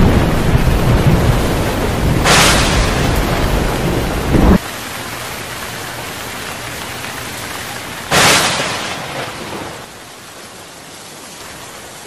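Thunderstorm: steady heavy rain with two sharp thunderclaps, about two and eight seconds in. A deep rumble under the rain cuts off abruptly about halfway through.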